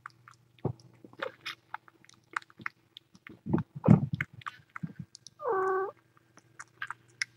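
Kittens playing on a person's lap: scattered small clicks, taps and soft thumps, with one short steady pitched call about five and a half seconds in.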